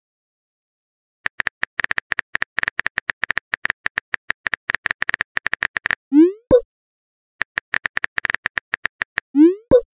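Texting sound effects: rapid phone-keyboard tapping clicks for a few seconds at a time, each run ending in a short rising whoosh and a pop as a message is sent. This happens twice, about six seconds in and again near the end.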